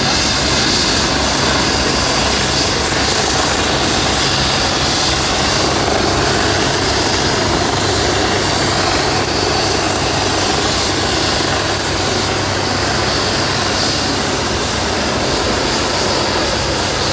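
AgustaWestland AW109 twin-turbine helicopters running: one turning its rotor on the pad while another climbs away overhead. The rotor and turbine noise is loud and steady, with a thin high whine over it.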